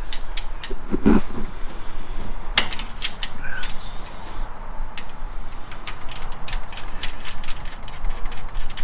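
Scattered light clicks and taps of hand tools and small parts being handled, over a low steady hum.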